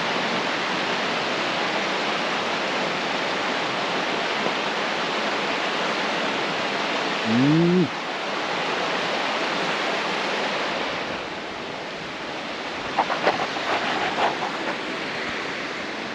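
Steady rush of the Kumozu River's flowing water, a little fainter from about eleven seconds in. A short rising voice sound cuts in about halfway through, and a few light clicks come near the end.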